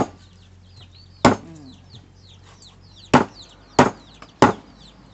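A steel meat cleaver chopping through a large silver barb, bone and all, on a wooden chopping block: about five heavy chops, irregularly spaced, the last few coming quickly. Birds chirp steadily behind.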